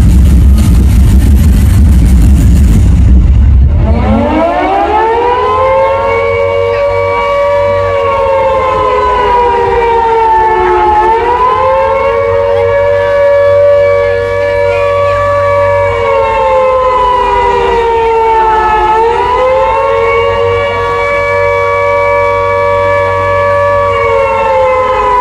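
A loud rumbling noise, then about four seconds in a civil-defence-style siren winds up and keeps wailing. Its pitch holds high, sags slowly and rises again roughly every eight seconds.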